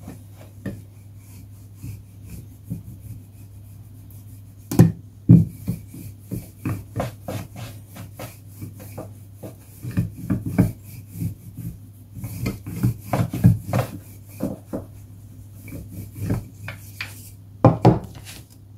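Wooden rolling pin rolled back and forth over thin dough on a stone countertop: irregular rubbing strokes with knocks of the wood on the stone. Near the end comes a louder pair of knocks as the pin is put down on the counter.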